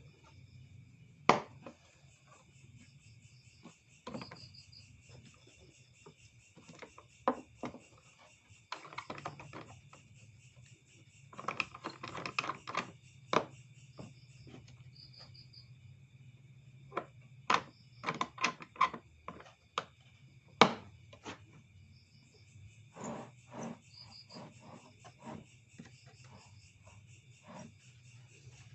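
Scattered clicks and knocks of objects being handled, with a couple of busier stretches of rapid knocking, over a steady background of crickets chirping.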